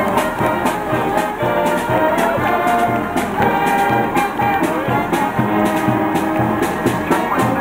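Brass band music, trumpets and trombones playing over a steady drum beat.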